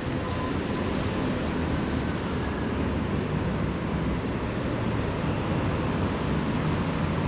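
Steady city-street background noise: a continuous low traffic rumble and hum, with no single sound standing out.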